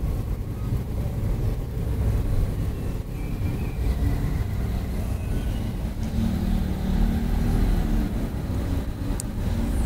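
Low, steady rumble of motor vehicle noise, with a steadier engine hum in the second half and a brief high click near the end.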